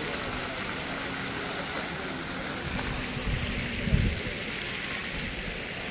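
Ground-level plaza fountain jets spraying and splashing onto wet paving, a steady hiss of falling water. A low thump comes about four seconds in and is the loudest moment.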